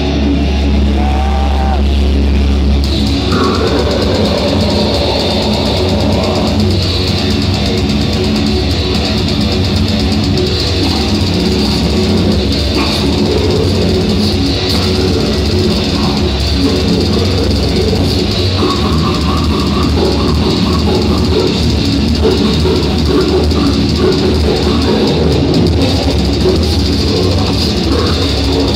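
Live death metal band playing at concert volume: heavily distorted guitar and bass with a drum kit. A low held note fills the first few seconds, then the full band with cymbals comes in about three seconds in and keeps going.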